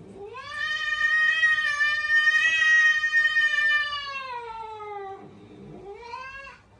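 A cat meowing: one long drawn-out meow that holds steady and then falls in pitch at its end, followed a moment later by a second, shorter meow that rises in pitch.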